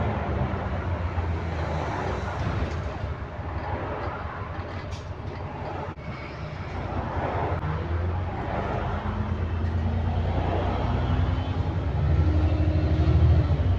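Interior of an ADL Enviro400 MMC double-decker bus with a Voith automatic gearbox under way: engine and driveline running, with road noise and body rattles. Near the end the engine note climbs and gets louder as the bus speeds up, with the low groan this bus now makes under acceleration.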